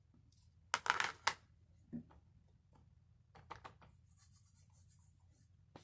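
Short scratchy strokes of chalk being scraped and worked in craft work: a loud group about a second in, another about two seconds in, and a quicker run of strokes near the middle, followed by a soft high hiss.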